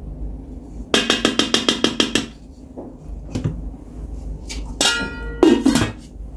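A wooden spatula knocked quickly about a dozen times against a stainless steel pot, each knock ringing. A few seconds later comes a sharp metallic clang and clatter as the steel lid is set on the pot.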